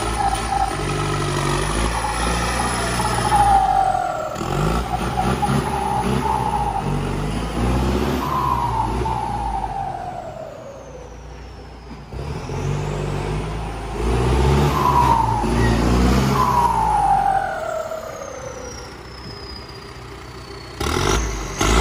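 New Holland 7740 turbocharged diesel tractor engine revved repeatedly, each rev falling away, with a high turbo whistle gliding down as the engine drops back twice.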